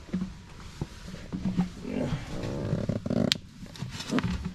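Knocks and footfalls of a person climbing down through a deck hatch into a boat's engine room, with a sharp knock a little after three seconds in.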